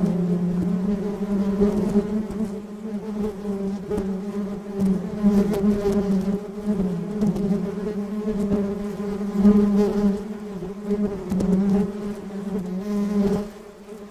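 Honey bees buzzing as they forage for pollen: a steady low hum with overtones that swells and fades as the bees move about, dipping briefly near the end.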